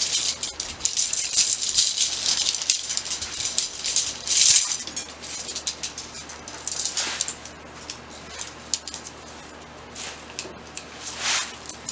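Rustling and rattling of tent parts being handled: nylon fabric and support rods, with many small clicks. It is busiest in the first half, with a loud surge about four and a half seconds in, and turns sparser after about seven seconds.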